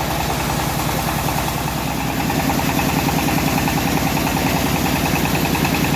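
Engine of a homemade bandsaw mill running steadily with an even firing beat, getting a little louder about two seconds in.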